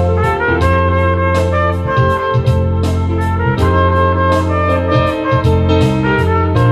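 Trumpet playing a melody of held notes over a backing track with bass and a steady beat.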